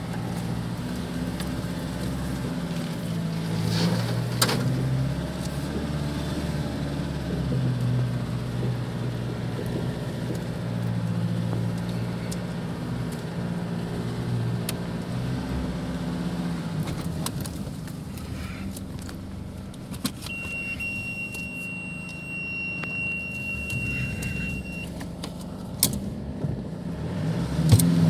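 Nissan Navara D40's 2.5 dCi four-cylinder turbodiesel running under load in low-range four-wheel drive, its note rising and falling with the throttle. There is a sharp knock about four seconds in, the engine quietens past the middle, and a steady high tone sounds for a few seconds near the end.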